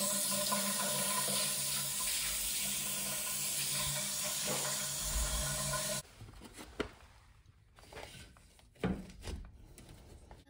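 Handheld shower head spraying water onto a tiled shower floor: a steady rush with a low hum underneath, as the newly fitted shower valve is run. It cuts off suddenly about six seconds in, leaving a few faint knocks.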